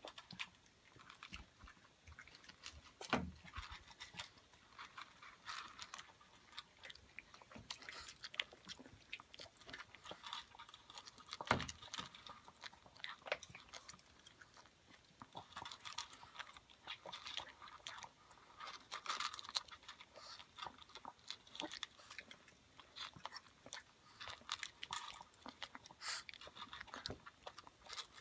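Chihuahuas chewing and crunching food: a steady run of small, irregular crunches, with two louder knocks among them.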